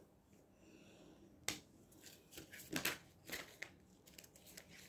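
Tarot cards being handled: a few soft snaps and rustles as a card is drawn from the deck and laid on a wooden table, the sharpest click about a second and a half in and a cluster near the three-second mark.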